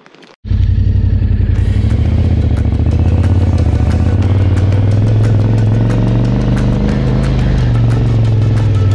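Yamaha Ténéré 700's parallel-twin engine running under way, mixed with background music that has a steady beat. Both cut in abruptly about half a second in.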